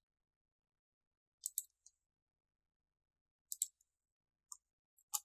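Faint computer mouse clicks: a quick pair about a second and a half in, another pair about three and a half seconds in, then single clicks near the end.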